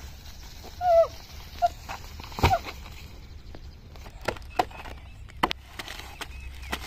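Machete blades chopping and slicing into green banana trunks: a string of sharp, separate knocks from about four seconds in. Earlier come a few short pitched calls.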